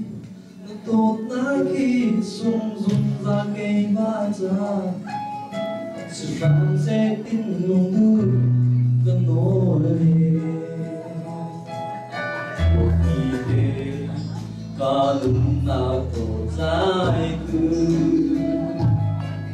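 Man singing a Chin-language song into a handheld microphone over instrumental backing music; deep bass notes come in about two-thirds of the way through.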